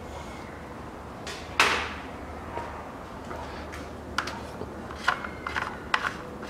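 A hand working in a car's engine bay: one sharp click about one and a half seconds in, then a run of small clicks and taps in the last two seconds, as engine-top parts are handled.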